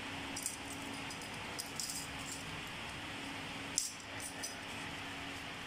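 Light metallic clinks and rattles of V-brake arms being handled and set down: a few scattered clicks, a short cluster around the second second and one sharper click about four seconds in. Under them runs a steady background hum.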